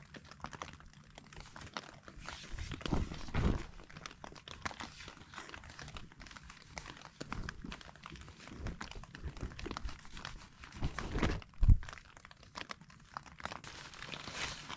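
Cloth rustling as a person rubs himself dry with a microfiber towel, with the nylon tent floor crinkling under him as he shifts, and a few low thumps, the loudest about twelve seconds in.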